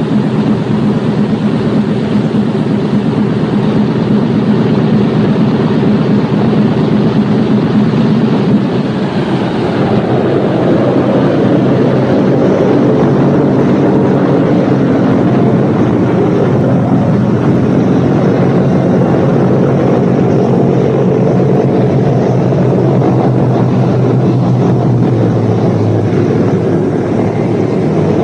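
Boeing B-17 Flying Fortress's Wright Cyclone nine-cylinder radial engines running on the ground, a steady, loud propeller drone. The drone changes about ten seconds in and again near the end, as the engines are run up before the inboards are cut.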